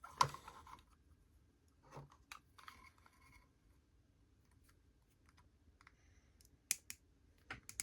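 A few faint, scattered clicks and taps of small plastic toy parts being handled and fitted together, with a small cluster near the end.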